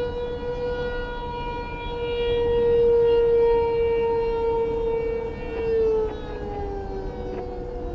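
Outdoor warning siren sounding a steady wail for a tornado warning. It swells louder around the middle, then starts to fall in pitch about six seconds in.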